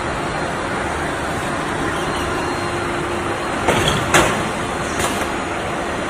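HVAC duct auto production line running with a steady mechanical din, and three sharp clanks a little over halfway through as sheet metal is handled by the line.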